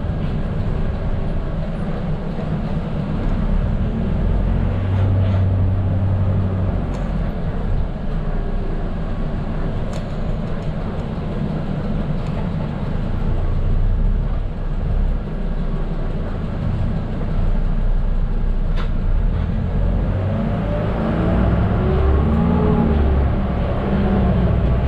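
The diesel engine of a Mercedes-Benz OF 917 medium bus running, with road noise, as heard from the driver's cabin. The bus slows through a turn, and in the last few seconds the engine note rises as it pulls away.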